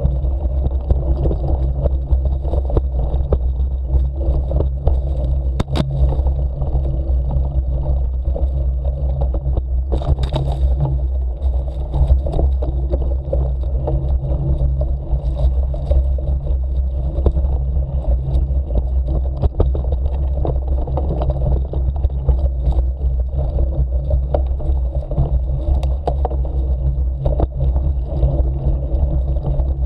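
Bicycle ridden slowly along a forest dirt trail: a steady low rumble of tyres and wind on the microphone, with small clicks and rattles over bumps and a sharper clatter about 6 and 10 seconds in.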